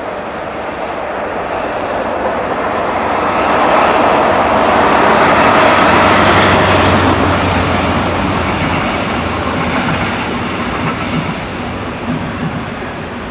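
DB class 218 diesel-hydraulic locomotive hauling double-deck coaches past at speed. The diesel engine and the wheels on the rails grow louder and peak about four to seven seconds in, then the clatter of the coaches slowly fades.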